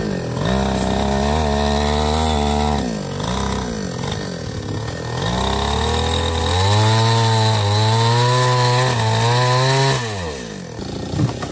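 Small two-stroke chainsaw revved up twice, each time held at high speed for a few seconds before dropping back. The second run is higher and steadier and cuts off about ten seconds in. The saw is being used to cut felled sengon (jengjen) logs.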